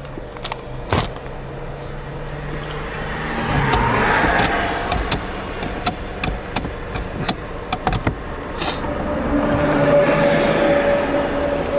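Car engine and road noise heard from inside the cabin, steady underneath with a few sharp clicks and knocks; the noise swells louder twice, about four seconds in and again near the end.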